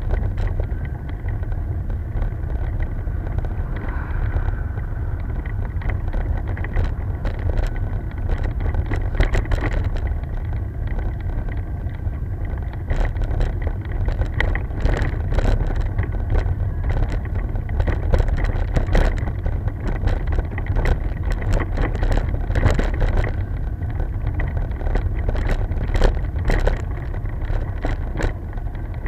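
Wind buffeting the microphone of a bicycle-mounted action camera on a climb: a steady low rumble, broken by frequent small rattles and knocks from the rough, patched road surface.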